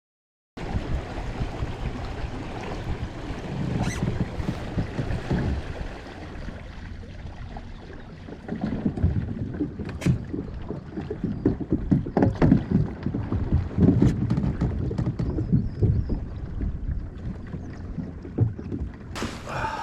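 Fishing kayak moving on the lake: water washing and sloshing against the hull, with wind rumbling unevenly on the camera microphone.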